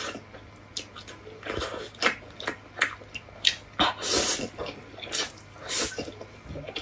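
A person slurping egg noodles: a series of short slurps at irregular intervals, the longest about four seconds in and another near six seconds.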